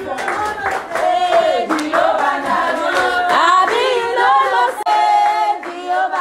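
Several voices singing together, with hand claps keeping time.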